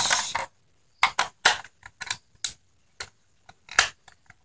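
Plastic casing of a Sony ICF-304 portable radio being handled: a short rustling scrape at the start, then a string of separate sharp clicks and knocks, about seven in three seconds.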